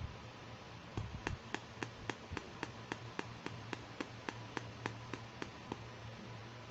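Fingers tapping on a small sealed plastic toy package: a steady run of sharp light taps, about three to four a second, starting about a second in and stopping near the end.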